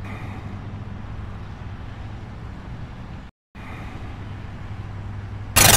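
A steady low hum with a light hiss underneath, like a vehicle engine or road noise, broken by a moment of dead silence a little past three seconds in. Loud music with a fast, even beat cuts in at the very end.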